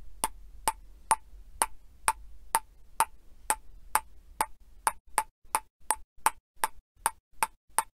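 A short, sharp click sound effect repeated about twice a second, getting a little quicker near the end, one click for each letter as on-screen text is typed out.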